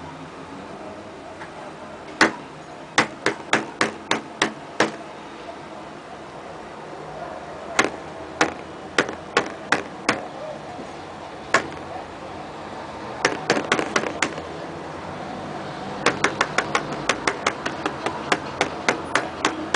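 Fingers striking the surface of a non-Newtonian fluid in a plastic tub, each quick jab making a sharp tap as the fluid firms up under the impact. The taps come in clusters, fastest near the end at about four a second.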